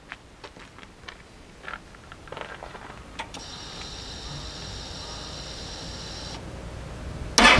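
A few small clicks, then a steady high whine for about three seconds, typical of a fuel-injected motorcycle's fuel pump priming when the ignition is switched on. Near the end the starter cranks and the Yamaha XV1300CA Stryker's V-twin fires up loudly through Vance & Hines Twin Slash Staggered exhausts.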